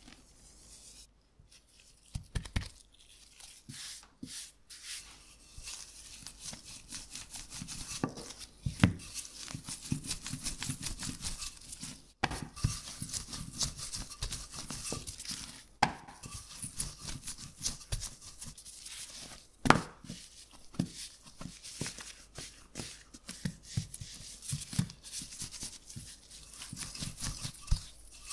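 Rolling pin rolling out a rested pastry dough on a floured worktop: a dry rubbing, rolling sound with scattered knocks as the pin is set down and the dough is turned, starting about two seconds in after a quiet moment.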